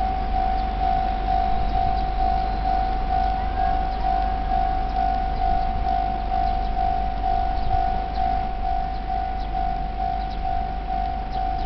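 Japanese railway level-crossing warning bell ringing: an electronic ding repeated evenly about twice a second at one steady pitch. It signals that the crossing is active and a train is approaching or passing.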